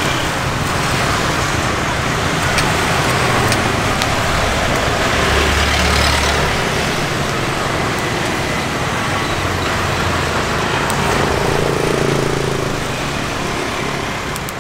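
Road traffic, cars and motorbikes going by in a steady wash of noise. A passing vehicle's engine hum stands out about five seconds in, and another about eleven seconds in, with a few light clicks over the top.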